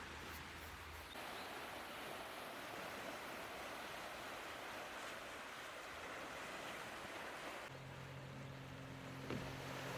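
Steady rushing wash of sea surf. A low steady hum comes in near the end, and there is a single sharp click shortly before the end.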